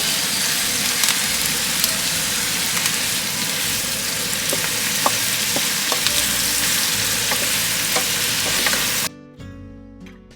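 Pork belly, onions and tomatoes sizzling steadily as they sauté in olive oil in a pan, with a few light clicks of a stirring utensil. Near the end the sizzle cuts off abruptly and soft acoustic guitar music takes over.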